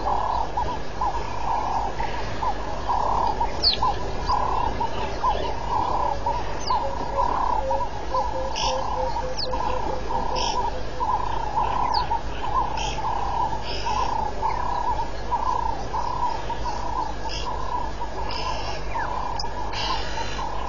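A steady chorus of animal calls: a short call repeats at an even pace, about three every two seconds, with scattered high chirps and sweeps above it. A quicker run of low pulses comes in about seven seconds in and stops a few seconds later.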